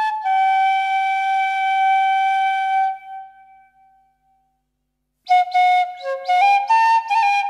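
Bansuri, the Indian bamboo flute, playing a Moravian folk melody. A long held note fades away, then after about a second of silence a new phrase of short notes begins.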